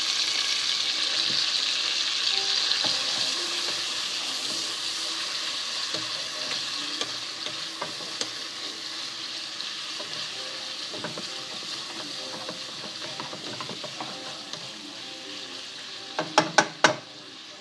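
Chopped bacon sizzling as it fries in a pan, stirred with a wooden spatula that gives scattered small clicks. The sizzle slowly dies down, and a quick run of four sharp knocks comes near the end.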